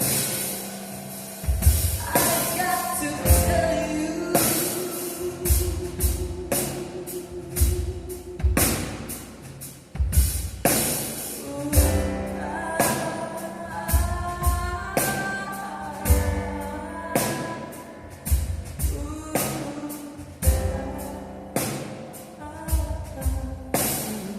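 Live band music: a drum kit played in a slow, uneven pattern of strikes under a singing voice and piano or keyboard chords.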